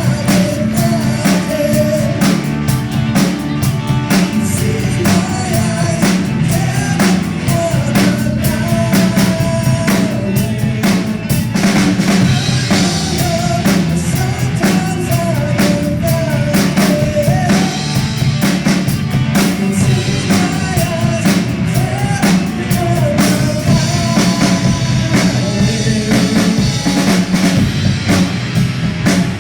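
A live rock band playing: a drum kit keeps a steady beat over a bass line, with a wavering melody line above.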